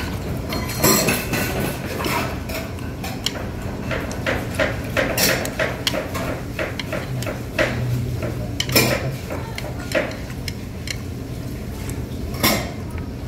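Metal chopsticks clicking and scraping against dishes while eating, a run of irregular light knocks with a few louder clinks.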